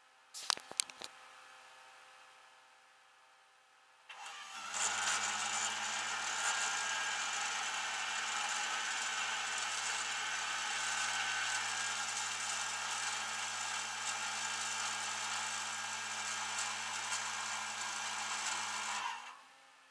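A few sharp clicks, then about four seconds in a motor starts and runs steadily with a low hum for about fifteen seconds before cutting off near the end.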